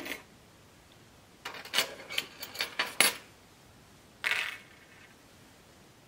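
Small metal lock parts, a key and the brass pins of a lock cylinder's barrel, clicking and clinking as they are handled and set down on a table: a quick run of light clicks from about one and a half to three seconds in, then a short scrape around four seconds in.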